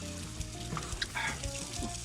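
Food frying and sizzling in a pan over a fire, with light background music and a few small clicks.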